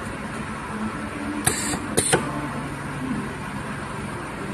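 Semi-automatic wire soldering machine working, with a steady low hum. About a second and a half in come two short, sharp hisses half a second apart as it cycles.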